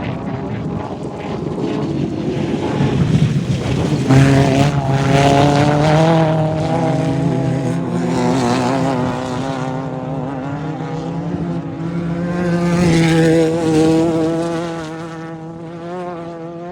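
Off-road race vehicles' engines running hard as they pass, engine pitch shifting up and down. Loudest about four seconds in and again around thirteen seconds, then fading away.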